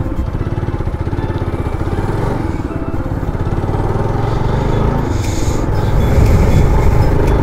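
Motorcycle engine running while riding, with wind rushing over the microphone, getting gradually louder.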